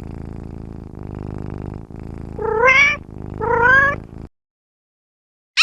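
Domestic cat purring steadily, with two meows about two and a half and three and a half seconds in, each rising in pitch. The purring stops soon after the second meow.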